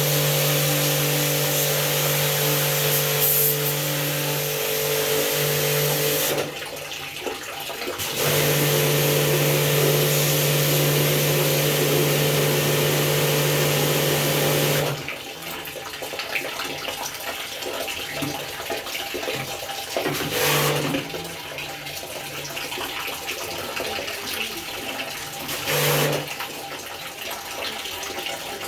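Electric water pressure jet pump running with a steady hum while its jet sprays water, stopping for about two seconds around seven seconds in and then running again until about halfway. After that a softer hiss of water runs on, with two brief bursts of the pump.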